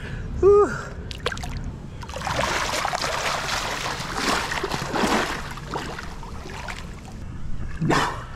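Water splashing and churning at the surface as a snorkeler duck-dives, legs kicking above the water. A short vocal sound comes just after the start, and a sharp splash or breath comes near the end as a diver surfaces.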